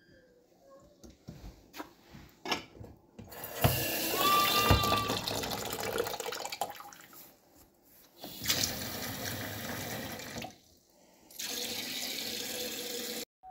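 Kitchen faucet turned on and off three times, water running into the sink each time, after a few light knocks.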